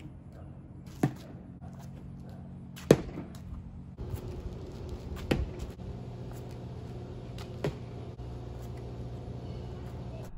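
Hollow plastic Blitzball thrown and striking, four sharp knocks at irregular intervals, the loudest about three seconds in, over a low steady hum.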